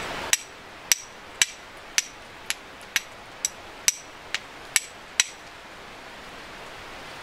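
Flint and steel striking: about eleven sharp metallic clicks, roughly two a second, stopping about five seconds in. The strikes are throwing sparks onto char cloth to catch a fire.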